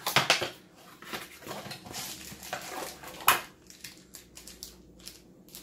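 Cardboard packaging insert and a plastic inspection-camera handle being handled and unpacked: scattered rustles, scrapes and clicks, with sharper knocks just after the start and about three seconds in.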